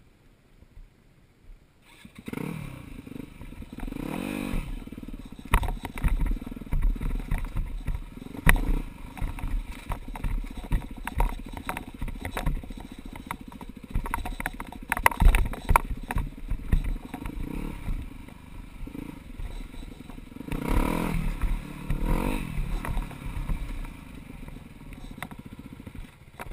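Four-stroke dirt bike engine that comes in about two seconds in and runs while the bike rides a rocky trail, revving up and down with the throttle. Many sharp knocks and clatter from the bike going over rocks.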